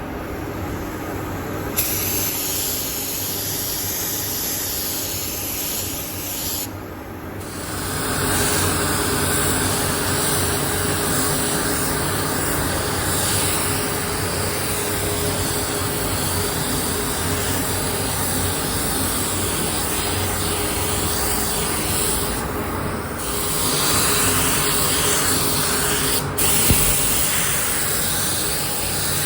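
Compressed-air paint spray gun hissing in long continuous passes, with two short breaks where the trigger is released, and a single sharp click near the end.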